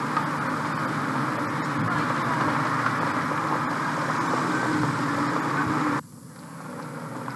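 Town street noise with car traffic passing, recorded on old home-video tape. It cuts off abruptly about six seconds in and comes back as quieter street sound.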